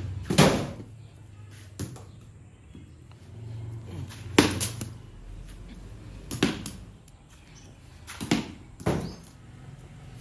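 Backyard cricket: a rubber ball bouncing on concrete and being hit with a cricket bat, giving several sharp knocks a couple of seconds apart, one of them a quick double knock.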